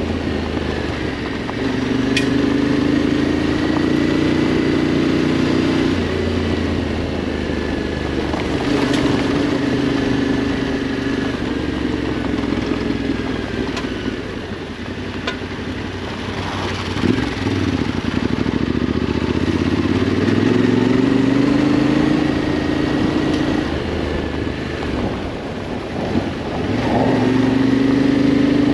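Adventure motorcycle engine on an off-road ride, its revs repeatedly climbing over a few seconds and then dropping back with throttle and gear changes. A few sharp ticks come through now and then.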